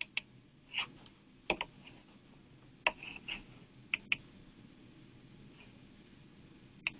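Scattered sharp clicks of a computer mouse and keyboard as someone navigates a web page, about ten in all, some in quick pairs.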